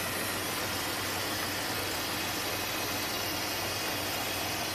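Pickup truck engine idling steadily with the hood up, a constant low hum under a steady hiss, while the air intake tube is being fitted back onto the throttle body.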